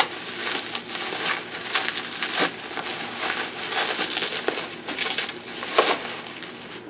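Bubble wrap crinkling and rustling as it is pulled off a small box, with many sharp crackles, the loudest about two and a half seconds in and near the end.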